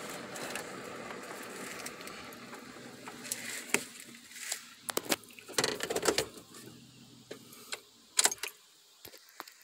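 The Silverado's 4.8 L V8 and cabin noise run steadily for the first few seconds, then give way to keys jangling on the ignition key ring and a string of irregular clicks and knocks as hands work around the steering column. By the end the engine is off.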